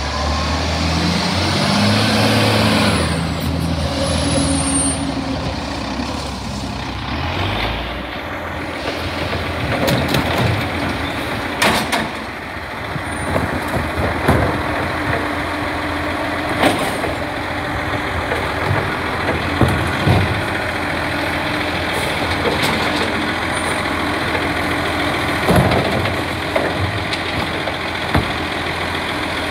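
Dennis Eagle side-loading garbage truck pulling up, its diesel engine slowing and the air brakes hissing. It then runs steadily while its hydraulic bin-lifting arm works, with occasional sharp clunks from the arm and the bins.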